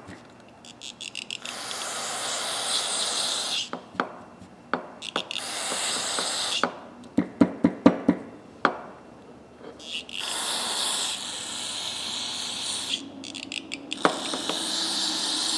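Aerosol carburetor cleaner hissing out through its straw into a ratchet head, flushing dirt and grit from the dry mechanism: four long sprays with short clicks of the tool in between.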